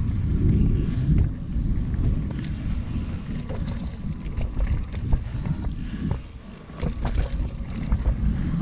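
Cross-country mountain bike being ridden fast on dirt singletrack. Wind buffets the microphone and the tyres rumble, with scattered clicks and rattles from the bike over the ground. It eases briefly a little after six seconds in.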